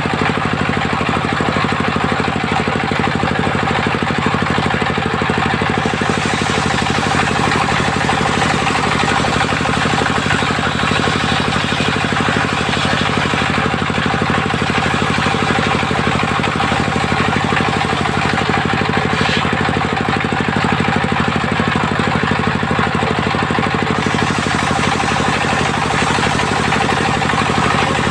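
Engine driving a mobile circular sawmill, running steadily with an even, unbroken rhythm.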